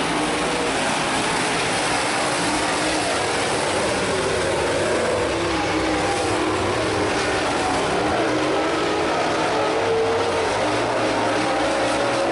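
A field of super late model dirt-track race cars running at speed, their V8 engines droning together with pitches that rise and fall as the cars pass and go through the turns.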